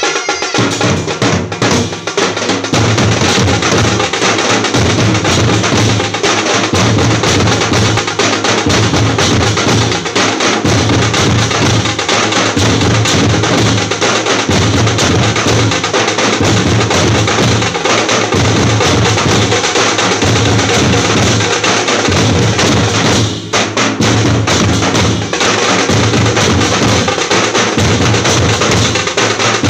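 Loud, continuous percussion-heavy drumming with a steady pulsing beat, briefly dropping out about three-quarters of the way through.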